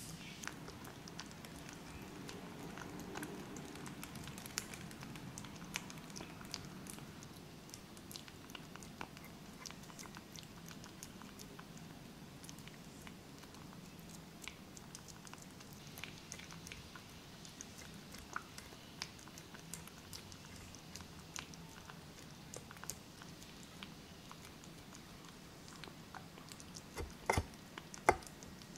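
Ginger kitten eating wet cat food from a stainless steel bowl: soft chewing and licking with many small wet clicks, and a few louder clicks near the end.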